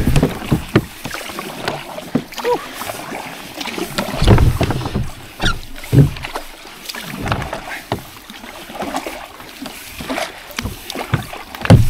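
Double-bladed kayak paddle stroking through calm water: splashing and dripping from the blades, with occasional dull low thumps.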